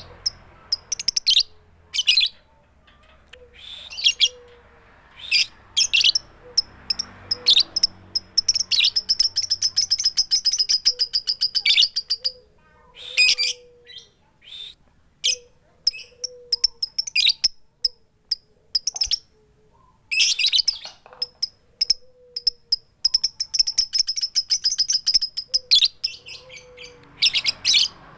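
Female lovebird calling for a male with sharp, high "tik tik" chirps and "keyok" calls, without the long chattering ngekek song. Twice the chirps run together into a rapid ticking trill lasting a few seconds.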